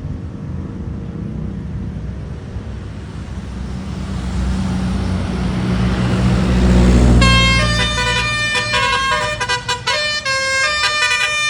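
A bus's engine rumble builds as it comes close, then about seven seconds in its Basuri 'telolet' multi-tone horn starts playing a tune of stepping notes, which turns choppy near the end.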